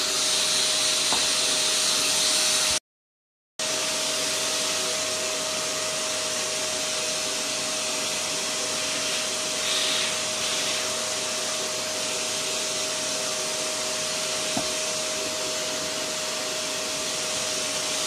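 Tacklife PVC01A wet and dry vacuum cleaner running as a blower, air rushing out of its hose over a steady motor whine. It cuts out for under a second about three seconds in, then runs on steadily.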